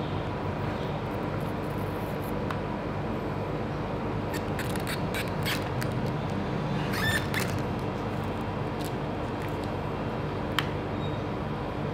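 Small cardboard candy box handled in gloved hands: light clicks and crinkly scrapes around the middle and a single sharp click near the end, over a steady background hum.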